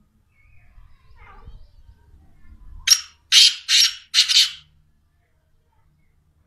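Black francolin calling: a short note about three seconds in, then three loud, harsh notes in quick succession.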